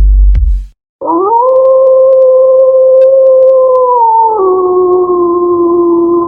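One long wolf howl. It starts about a second in with a short upward slide, holds a steady pitch, then steps down to a lower note about three seconds later and holds there until it ends.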